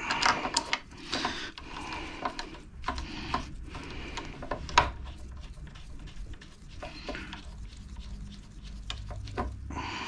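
Gloved hands working on a motorcycle's front brake caliper, starting its mounting bolts: rustling and rubbing with scattered small metal clicks, one sharper click about halfway through.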